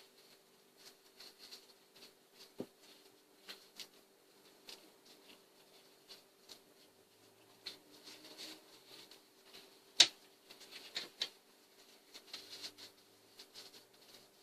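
Loose chainsaw chain clinking and rattling as it is handled and untwisted by hand, with scattered light clicks of the links and one sharper click about ten seconds in. A faint steady hum runs underneath.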